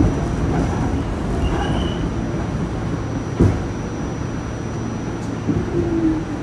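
New York City subway train running with a steady rumble, and a sharp clack from the rails about three and a half seconds in.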